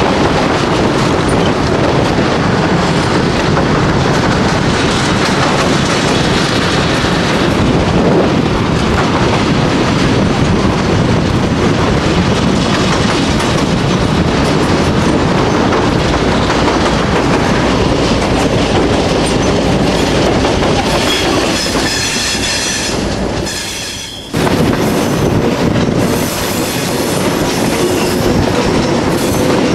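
Passenger train running over a steel viaduct, heard from on board: a steady rumble of wheels and clatter of the rails. Thin high wheel squeal comes in about three quarters of the way through. Around 24 s the sound dips and cuts abruptly to another stretch of the same train running.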